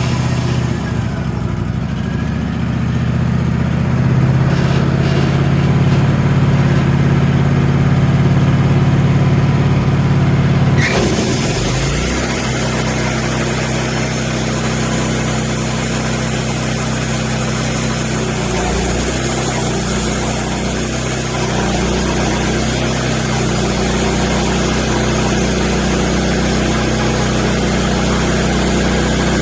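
Wood-Mizer LX150 bandsaw sawmill running with its engine going steadily. About eleven seconds in, a loud hiss comes in suddenly and carries on over the engine.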